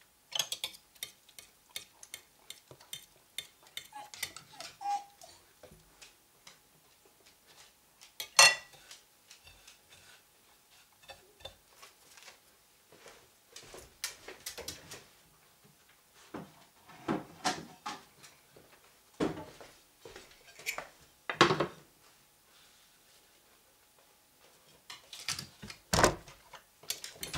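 A fork and fingers clinking, tapping and scraping on porcelain plates as zucchini slices are dipped in beaten egg and pressed into breadcrumbs. Irregular light clinks, with a few sharper knocks now and then.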